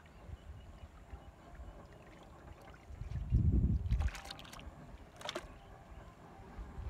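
Raw octopus dropped by hand into a large aluminium pot: a low rumble of handling, then wet slaps and clatters against the metal about four and five seconds in.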